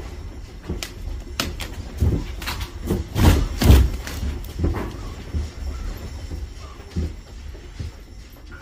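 A room shaking in the 7.8 Gaziantep earthquake: a continuous low rumble with irregular rattling and knocking from the building and its contents, heaviest about three to four seconds in and easing off toward the end.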